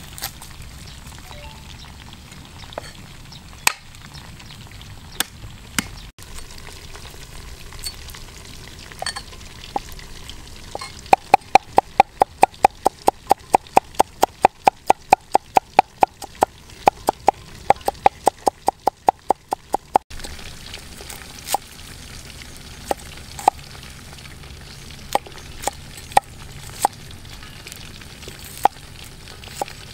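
Cleaver chopping on a wooden chopping block: scattered single chops, then a fast run of about four chops a second while mincing garlic, and slower chops slicing shallots near the end. A steady sizzle of oil frying in a wok runs underneath.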